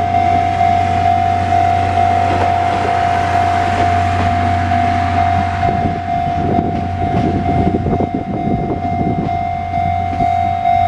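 Japanese level-crossing warning bell sounding steadily with a slight regular pulse while the steam-hauled Paleo Express train passes over the crossing. Its wheels clatter over the rails from about six seconds in.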